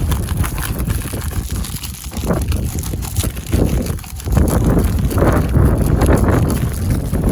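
Wind buffeting the microphone, with irregular crunching footsteps on icy ground; it gets louder about four seconds in.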